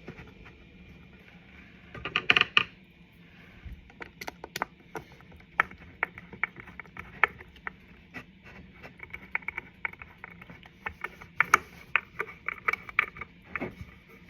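Small wooden clicks and knocks as a walnut shelf and screws are handled and a screw is lined up and turned into the wood with a hand screwdriver. There is a louder cluster of knocks about two seconds in, and a run of quick small clicks in the second half.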